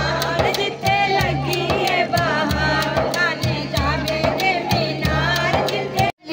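A woman singing a devotional naat into a microphone, her voice rising and falling in a melody over a steady rhythmic beat.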